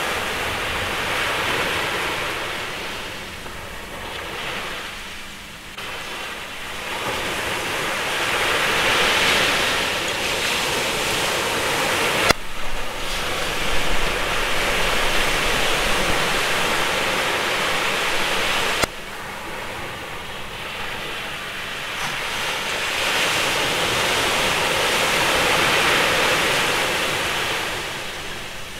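Ocean surf, a rushing wash of waves that swells and fades every several seconds, with sudden cuts about twelve and nineteen seconds in.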